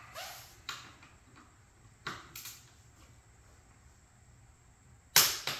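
A few faint taps and ticks of a torque wrench being set on bolts, then, about five seconds in, one sharp loud click as the click-type torque wrench breaks over at its set torque.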